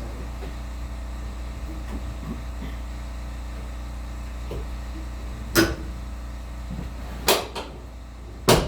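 A 2x72 belt grinder's motor running with a steady hum, and three sharp metallic knocks over the last few seconds, the second and third a little over a second apart.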